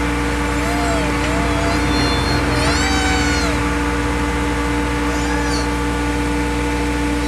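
Engine of a piece of earth-moving equipment running steadily at a constant pitch. A few short gliding squeals or calls rise and fall over it in the first half and again about five seconds in.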